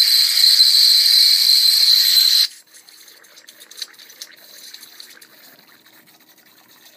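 Ultrasonic homogenizer (probe sonicator) running with its tip in liquid: a loud, steady, high-pitched whine with hiss that cuts off suddenly about two and a half seconds in, followed by faint scattered clicks.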